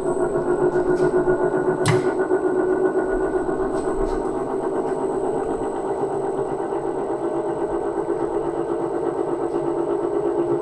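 Line boring machine running, its boring bar turning and cutting through the main bearing bores of a Lamborghini V10 engine block. It makes a steady mechanical hum that rises and falls unevenly, as the cutter takes more metal in some places than in others and cuts through both steel and aluminium. A sharp click about two seconds in.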